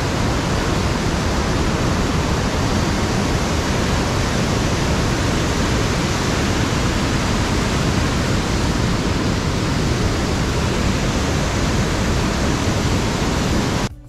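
Waterfall water rushing steadily, a dense, even roar with no breaks.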